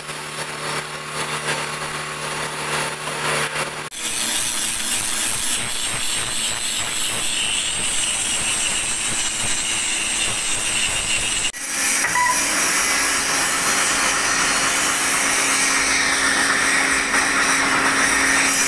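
Handheld angle grinder with an abrasive disc grinding a steel rod end, a loud steady grinding hiss with a high whine. It follows about four seconds of a lathe and its motor running with a steady hum.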